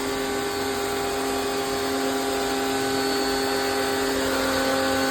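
Electric pressure washer running steadily: a motor hum with several steady tones over the hiss of its water spray.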